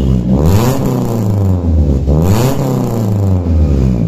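Daihatsu Xenia engine revved twice through an aftermarket NDK DK 03 v3 muffler, the pitch rising about half a second in and again about two seconds in, each time dropping back down.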